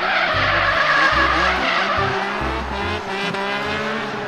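BMW E36 drift car sliding sideways: engine held high in the revs while the rear tyres squeal and skid.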